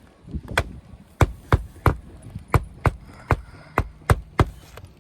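Hammer blows nailing a replacement asphalt shingle down onto the roof: a quick series of about ten sharp strikes, roughly three a second.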